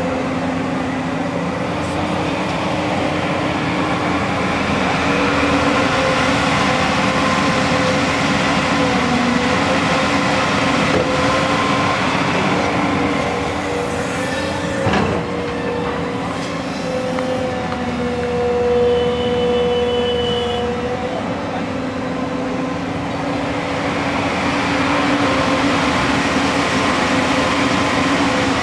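JCB tracked excavator's diesel engine running steadily as it digs and swings, with a steady whine that changes pitch a few times. A single knock about halfway through.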